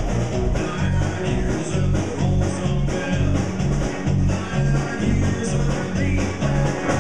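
Live rock-and-roll band music in an instrumental break: electric guitar and drums over a steady beat, with a harmonica played into the vocal microphone.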